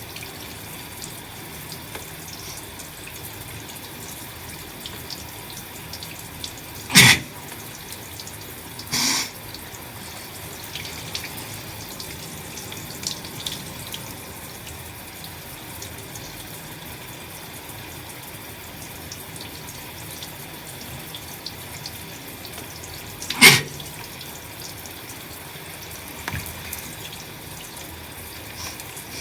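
A shower running steadily while a person with a head cold sneezes loudly twice, about sixteen seconds apart, with a short burst of breath about two seconds after the first sneeze and a few faint sniffs in between.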